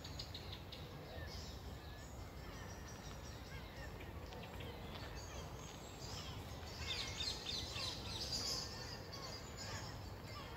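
Many small birds chirping and twittering together, busiest and loudest from about seven to nine seconds in, over a steady low background rumble.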